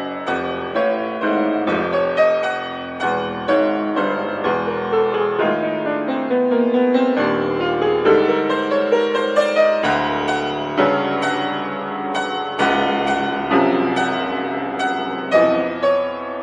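Solo piano playing an étude: quick chromatic runs and repeated notes in the right hand over chords in the bass, several notes a second.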